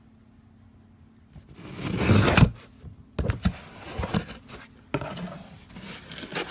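Cardboard boxes being handled: a long rasping scrape of cardboard, loudest just over two seconds in, then a string of knocks and rustles as the boxes are moved.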